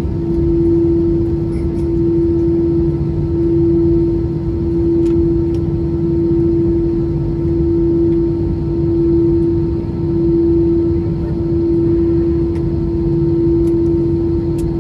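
Steady hum inside a parked airliner's cabin at the stand: one held tone over a low rumble, swelling and fading gently every second or two, with a few faint clicks.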